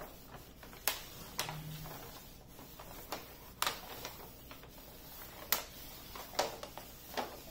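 Diamond painting canvas's protective cover sheet crackling as it is laid back over the canvas by hand, in sparse sharp crackles.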